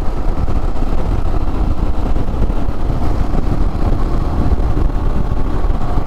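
Royal Enfield Himalayan motorcycle cruising at road speed, a steady, even engine drone and rumble with no gear change or revving.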